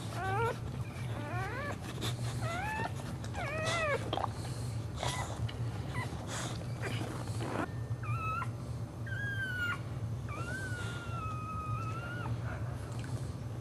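Dog whining: a run of short rising whimpers in the first few seconds, then longer, high drawn-out whines later on, over a steady low hum.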